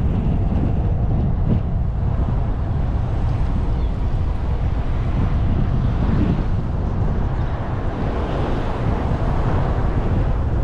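Steady rumble of a car driving along a paved road, tyre and road noise mixed with wind buffeting the microphone.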